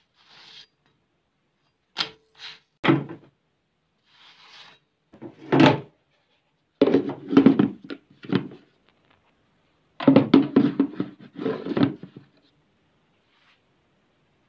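Kitchen cookware and utensils being handled: a sharp knock about two seconds in that rings briefly like struck metal, a few more single knocks, then two runs of quick clattering taps, the second about ten seconds in.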